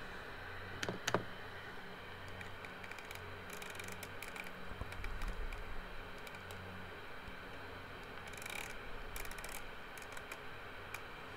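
Audioline 341 CB radio's speaker giving a steady hiss of receiver static with a low hum underneath, broken by two sharp clicks about a second in and a few faint ticks.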